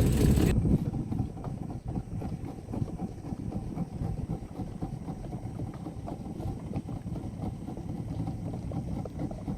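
A small boat's outboard motor running steadily at trolling speed, heard as a low rumble with wind on the microphone. The sound changes abruptly about half a second in, when the louder, fuller opening drops away.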